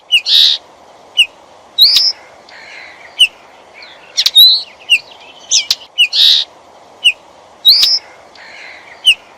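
Common linnet calling: a series of short, sharp chirps and upswept twittering notes, about one or two a second, over a faint background hiss. It cuts off abruptly at the end.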